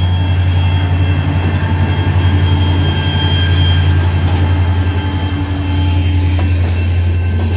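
CSX diesel locomotive passing slowly and close by, its engine giving a loud, steady low drone. Thin, steady high-pitched tones sit above the drone throughout.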